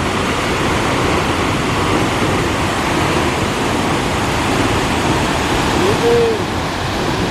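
Steady rushing of a large waterfall, a dense even roar of falling water. A brief voice sounds about six seconds in.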